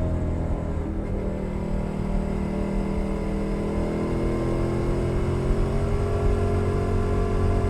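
Suzuki SV650's 645 cc V-twin engine running through an aftermarket Leo Vince Nero exhaust, its note climbing gradually from about two seconds in as the bike accelerates in gear.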